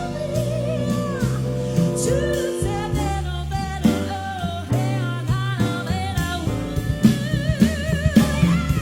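Vocal group singing live, voices held with vibrato, over an instrumental backing with a bass line and drums.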